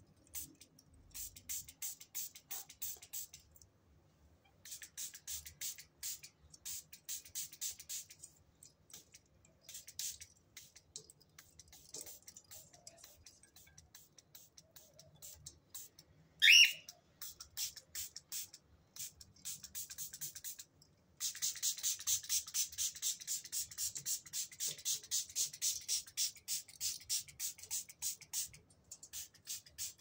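Background music with a fast, ticking high beat that stops and restarts several times. About sixteen seconds in, the cockatiel gives one short, loud call.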